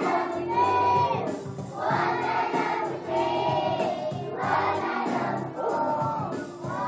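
A group of young children singing together on stage, in short repeated phrases that each end on a held note.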